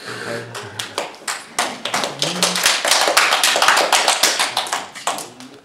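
A small audience clapping. It starts about a second in, peaks in the middle and dies away near the end, with a voice briefly heard at the start.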